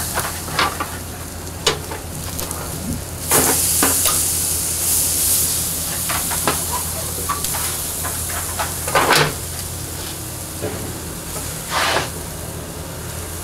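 Pork ribs sizzling on a hot barbecue grill grate as the racks are laid down, the hiss swelling about three seconds in and fading over the next few seconds. Scattered clicks and scrapes of meat and a grill fork on the metal grate, with two louder ones later on.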